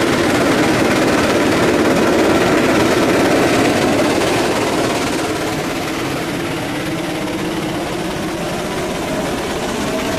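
Steam traction engine running steadily, driving a long flat belt to a prony brake that loads it for a horsepower test. The noise drops a little about five seconds in.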